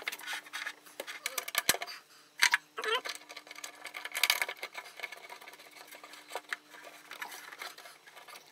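Hands working on cable connections inside the open side panel of a Clarke MIG welder: scattered clicks, taps and rustles of the cable and metal fittings, with a few sharper knocks.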